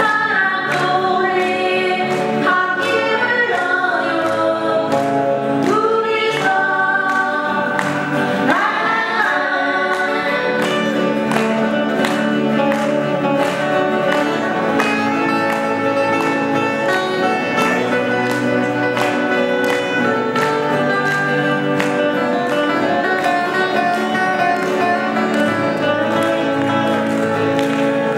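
Acoustic guitars played live, strummed and picked under singing. The singing rises and falls in pitch through the first ten seconds, then settles into longer held notes.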